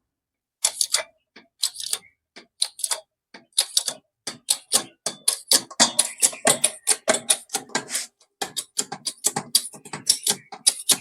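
A rapid, irregular series of sharp clicks from a hydraulic press being worked to push the old shaft out of a small exhaust fan motor's rotor. There are several clicks a second, coming closer together after the first few seconds.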